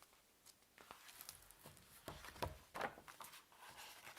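Storybook pages being leafed through: faint paper rustles and soft taps, the loudest few between about two and three seconds in.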